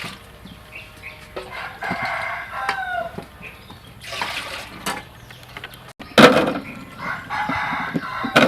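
Domestic chickens calling, a rooster among them, with a short gliding call near the middle. A loud, noisy burst of sound starts suddenly about six seconds in.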